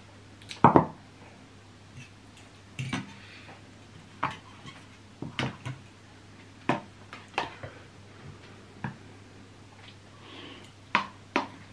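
Metal forks and spoons clinking against ceramic bowls, and a spoon scraping sambal out of a plastic tub: a dozen or so scattered sharp clinks, the loudest about a second in.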